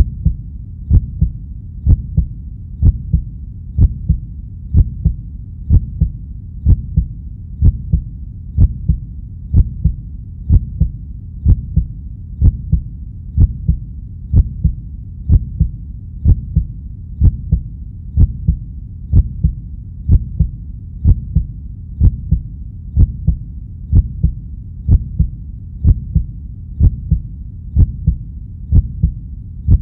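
A steady pulse of low double thumps, like a heartbeat, about once a second.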